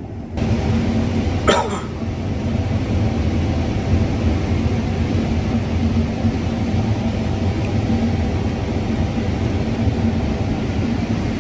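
Combine harvester running steadily while harvesting corn: a constant engine and machinery drone with a steady hum. A short cough-like sound about a second and a half in.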